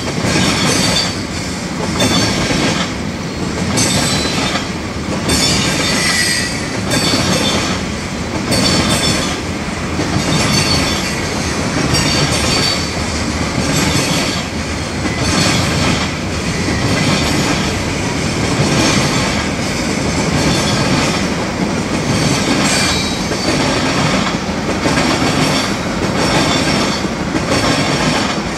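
Freight cars of a manifest train rolling past close by: steady wheel-on-rail noise that swells and dips as each car's trucks go by, with a thin high squeal from the wheels at times.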